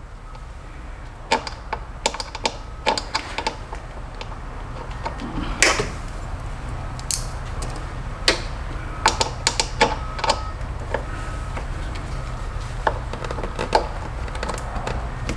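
Irregular sharp clicks and taps of a hand tool working on the mass airflow sensor's mounting screw as it is broken loose, over a low steady hum.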